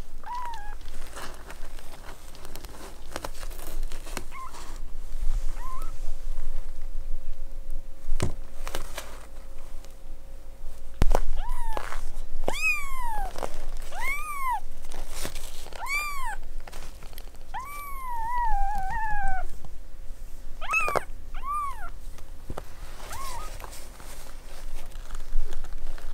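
Week-old kittens mewing: short, high-pitched arching cries, a few at first and then a run of about eight in the middle. Two sharp knocks come with them, the louder one about eleven seconds in.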